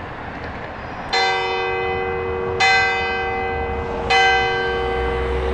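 Church tower bell of the Onze-Lieve-Vrouwkerk struck three times, about a second and a half apart, each stroke ringing on into the next.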